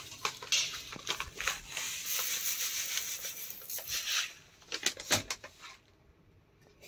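Paper bag of dry red lentils rustling and rattling as it is handled and lentils are tipped out to bring it down to half a kilo. A few sharp knocks follow about five seconds in as the bag is set back into the steel bowl on the scale.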